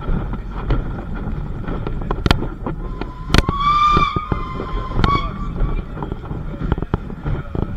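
Historic train running, with a steady low rumble and many irregular sharp clicks. Near the middle, a high ringing tone lasts about two seconds.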